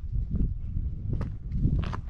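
Footsteps on a steep trail of small, loose rocks, a few uneven steps heard over a low rumble of wind or handling on the microphone.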